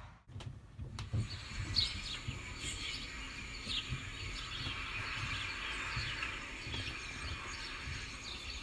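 Small birds chirping in short, repeated calls from about a second and a half in, over a low steady rumble.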